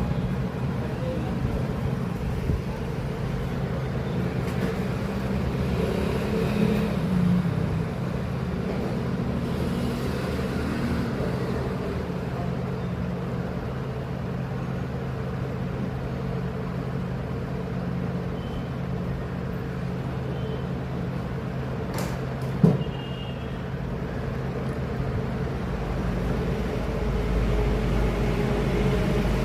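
A steady low mechanical hum, with one sharp click about two-thirds of the way through.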